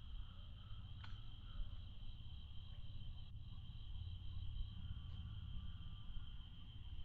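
Insects keep up a steady, high-pitched chirring drone. Under it, wind rumbles and buffets the microphone. There is one sharp click about a second in.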